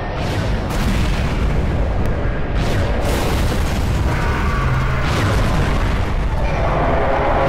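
Animated-battle explosion sound effects: several sharp blasts over a continuous low rumble, with music underneath.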